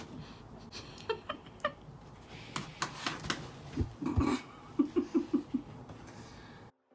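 Black Labrador mouthing and chewing a rubber frisbee toy: scattered clicks and knocks of teeth on the toy, with a run of short whines about four to five seconds in.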